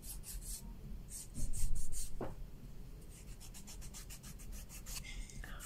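Quick, repeated scratching or rubbing strokes, about four or five a second, with a louder stretch about a second and a half in.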